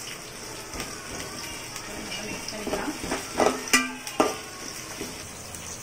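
Sliced shallots, green chillies and freshly added curry leaves sizzling in hot ghee and oil in a metal pot, stirred with a spoon. A spoon scraping against the pot and a few sharp knocks of it on the rim come about three to four seconds in, the loudest sounds.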